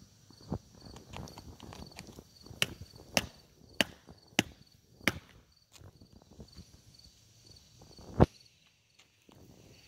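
Footsteps on wooden dock boards: a run of sharp knocks, a little under two a second, from about two and a half to five seconds in, with one louder knock near the end. Insects chirp steadily in the background.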